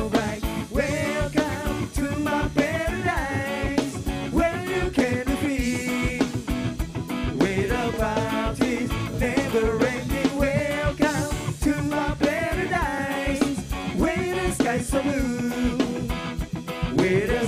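Live reggae band playing: a male singer over electric guitar and drum kit.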